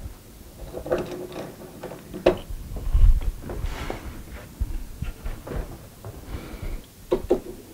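Clicks, knocks and scraping of metal clamp parts as a clamp is slid along the bar of a long Bessey K-body clamp and set against the work, with a heavier thump about three seconds in.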